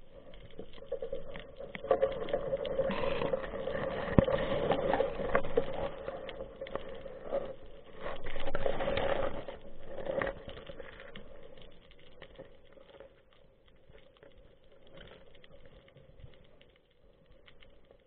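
Underwater sound picked up through the housing of a speargun-mounted camera: dense crackling and scraping over a steady low tone, loudest in the first half and fading toward the end as the gun moves through seagrass.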